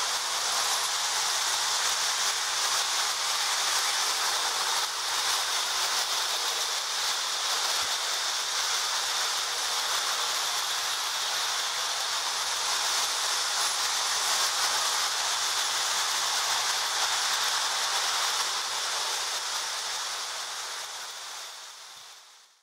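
Several Marx tinplate toy trains running together on three-rail metal track: a steady hissing rolling noise of wheels and motors, fading out near the end.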